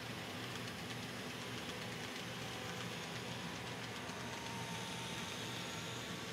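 KATO E259 Narita Express N-scale model train running around the track: a faint, steady rolling sound with a low motor hum.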